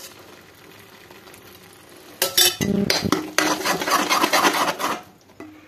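Metal spatula stirring curd into thick gravy in a kadhai: a quick run of scraping strokes against the pan that starts about two seconds in and stops shortly before the end.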